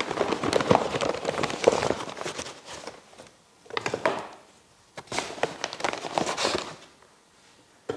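Large paper flour sack rustling and crinkling as flour is scooped out with a plastic scoop and tipped into a metal scale pan. It comes in bouts: a long one over the first three seconds, then shorter ones about four seconds in and again between five and six and a half seconds.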